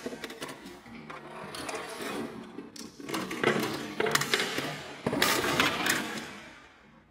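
Glass marbles rolling and clattering down the wooden ramps of a marble-run contraption, with sharp clicks and knocks as pieces tip and fall. The rattle surges several times through the middle and fades out near the end.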